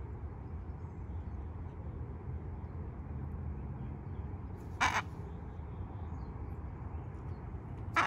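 Miligold macaw giving two short, harsh squawks, one about five seconds in and another near the end, over a steady low rumble.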